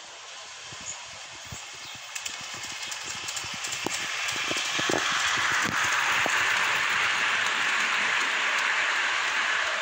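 Garden-scale model train approaching and passing close by on its track: a rushing hiss that grows louder over the first five seconds and then holds steady, with scattered clicks as it nears.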